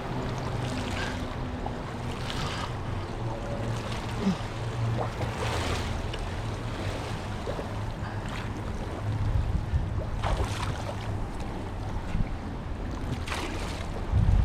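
Water lapping and splashing against a fishing kayak, with a steady low rush of wind on the microphone and short splashes every few seconds.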